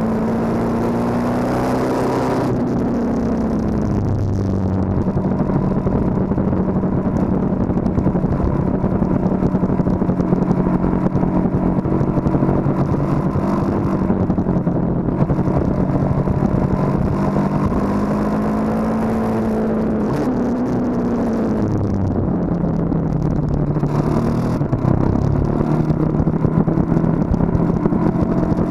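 KTM 1290 Super Duke R's 1301 cc V-twin under way on track, mixed with wind noise. It pulls at a steady pitch through a long sweeper, drops twice as the rider rolls off for corners, and climbs again near the end on the drive out.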